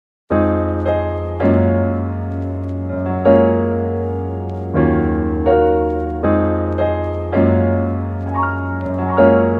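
Background music: a piano-led track that starts just after a brief gap, with new chords struck about every second over a steady bass.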